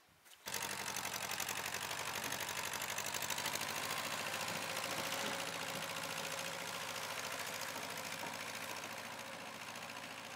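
Tractor engine running steadily with an even, rapid pulsing beat. It starts abruptly about half a second in and eases off slightly toward the end.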